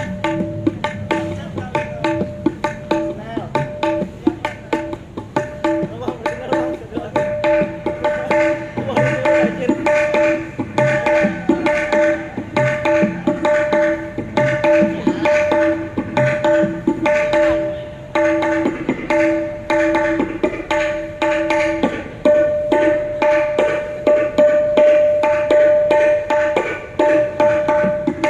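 Dangdut gendang, tabla-style hand drums, played in a fast continuous rhythm with ringing pitched strokes during a sound check.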